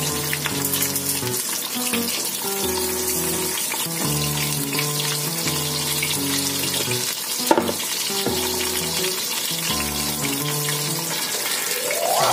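Pompano fish coated in cassava flour shallow-frying in a pan of hot oil, a steady crackling sizzle. A single sharp knock sounds about halfway through. Background music with a looping bass line plays under it.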